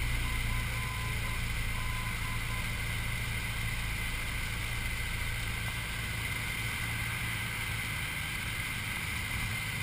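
Engine and propeller of a single-engine light aircraft droning steadily, heard from inside the cockpit in flight. A faint beeping tone is heard for the first few seconds.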